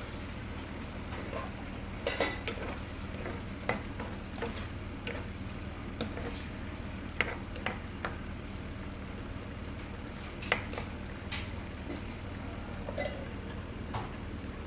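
Pork asado sauce simmering in a frying pan while a plastic spoon stirs it, with scattered clicks and knocks of the spoon against the pan over a steady low hum. A metal lid is set on the pan near the end.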